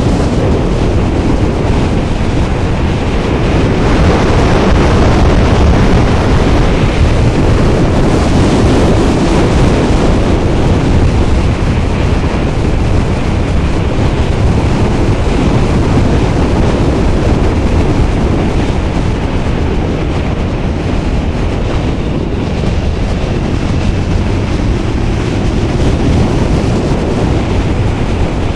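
Wind rushing over a helmet camera's microphone on a moving motorcycle, with the bike's engine and tyre noise underneath, loud and steady, swelling a little about four seconds in.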